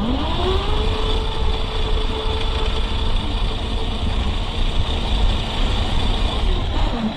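Radio-controlled model truck driving: a whine rises as it pulls away, holds steady, then drops away near the end, over a steady low rumble.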